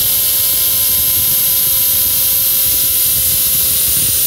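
Makita 18V cordless drill running steadily at full speed, its 3/16-inch bit boring through clamped aluminum plates. The high motor whine holds one steady pitch.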